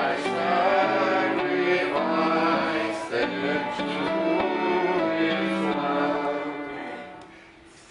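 Music with several held notes sounding together, fading away near the end.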